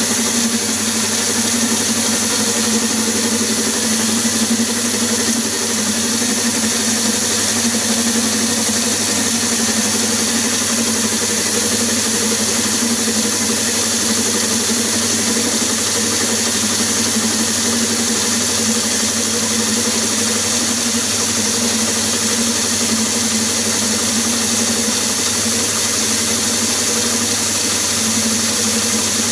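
Myford ML7 lathe running steadily at about 710 rpm, turning a brass bar with the carriage feeding along the work: an even mechanical hum with constant tones that does not change.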